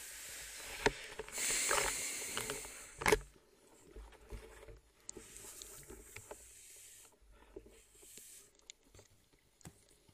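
Water sloshing and swishing around a spearfisher in the water, in patches, with one sharp click about three seconds in and fainter clicks and knocks after it.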